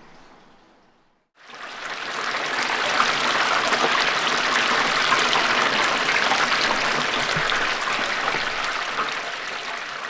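Battered frogs deep-frying in a tray of hot oil: a loud, dense crackling sizzle that starts suddenly about a second and a half in.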